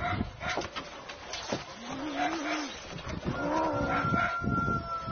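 Two cats fighting: two long, low, wavering yowls, about two and three and a half seconds in, with scuffling knocks on the corrugated roof sheets and a thin, steady high tone near the end.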